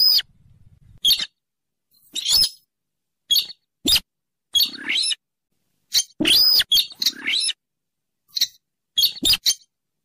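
Rail known locally as sintaran sawah or weris, used as a bird-luring call: a string of short, sharp squeaky calls that rise then fall in pitch, spaced irregularly with brief silences between them. The calls crowd together and are loudest a little past the middle.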